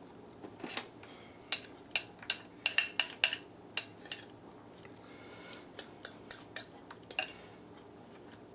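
A metal utensil clinking sharply against a mixing bowl, about a dozen quick clinks in two bursts, as marinade is scraped and poured out of the bowl.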